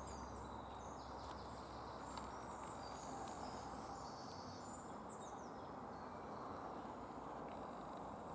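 Faint high chirps and short whistled notes of small woodland songbirds, scattered through the first five seconds or so, over a steady low background hiss.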